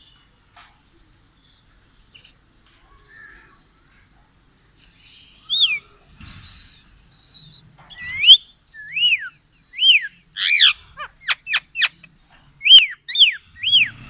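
Rose-ringed parakeet calling: a series of loud, shrill arched calls, each rising then falling in pitch, starting about five seconds in and coming roughly once a second, with a quick run of short sharp notes partway through.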